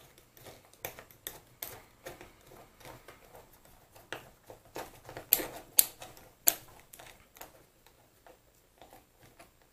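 Small metal parts of a mini lathe apron clicking and knocking as they are handled and fitted by hand, in an irregular run of taps with a few sharper clicks around the middle.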